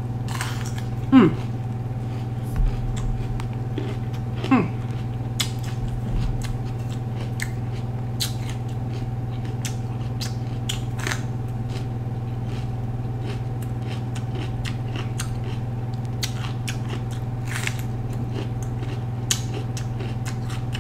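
Raw yellow bell pepper being bitten and chewed, with many short crisp crunches scattered throughout, over a steady low hum.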